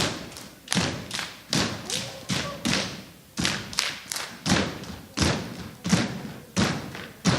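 Step team stepping: stomps and hand strikes in unison, about two to three hits a second in a syncopated rhythm, with a brief pause about three seconds in.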